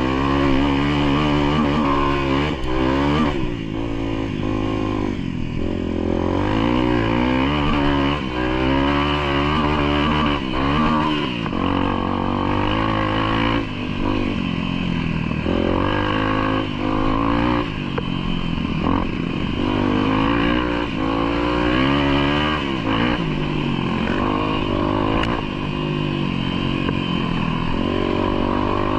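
A vehicle engine working hard, its pitch rising and falling again and again as it is revved and eased off.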